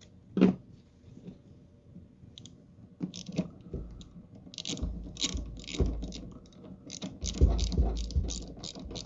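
A ratchet wrench clicking in short uneven runs, about two or three clicks a second, as the nut holding a wiper arm onto the wiper linkage post is run down. A single sharp knock comes about half a second in.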